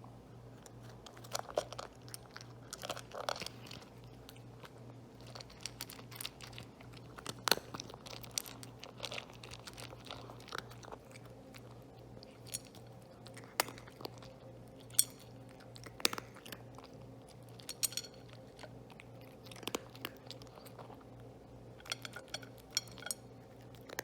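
A cat crunching and chewing food, with irregular sharp crunches every second or so.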